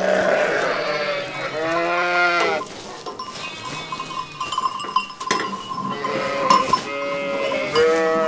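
A flock of sheep bleating several times, with a bell ringing among them.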